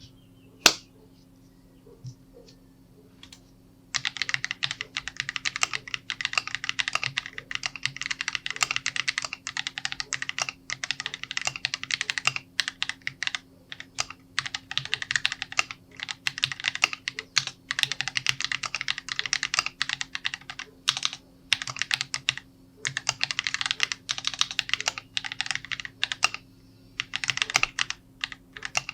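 Typing on an Epomaker Mini Cat 64 mechanical keyboard in its stock build: stock Radiant Red switches in a flexy PC plate with XDA-profile keycaps. One sharp click about a second in, then fast continuous keystrokes from about four seconds in, broken by a few brief pauses.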